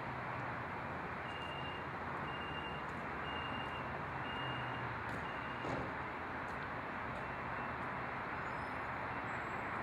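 A high electronic warning beep repeats about once a second, six times, then stops, over a steady rumble of vehicle and train noise.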